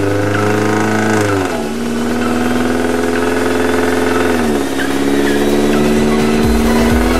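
Turbocharged 1.8-litre four-cylinder engine of a Chevrolet Cruze pulling hard on dyno rollers. Its pitch climbs slowly and drops sharply twice, at about 1.5 s and 4.5 s in, as it shifts up through the gears. Near the end a rapid run of low thuds sets in under the engine.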